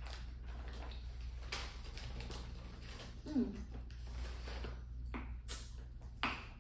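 Close-miked mouth sounds of a person biting and sucking on a hard cola candy: a few short sharp clicks, with a brief 'hmm' from the voice about three and a half seconds in, over a steady low hum.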